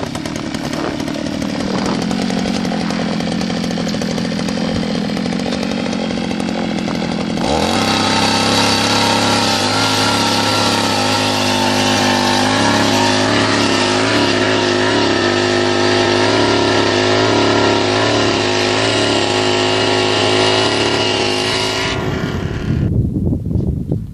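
Small petrol engine running steadily, then speeding up about a third of the way in and holding at the higher speed until it cuts off near the end.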